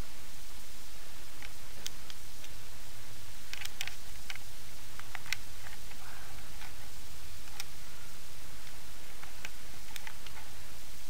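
Scattered faint clicks and small taps, irregular and a second or more apart, over a steady hiss and low hum from a home video camera's microphone.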